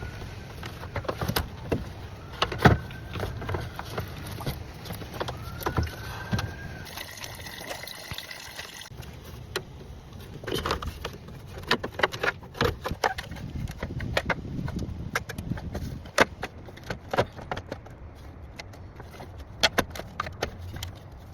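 Metal hand tools clinking and knocking on metal, irregular sharp clicks, with a few short squeaks early on, during alternator removal work on the van's engine.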